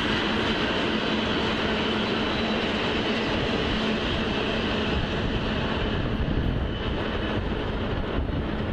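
Freight train of tank cars rolling past: steady noise of wheels on rail and cars going by, thinning a little about seven seconds in as the last cars pass.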